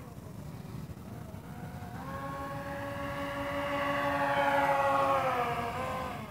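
Small electric motor and propeller of a foam glider converted to radio control, whining in flight. It grows louder as the plane passes close by, and its pitch drops near the end as it moves away.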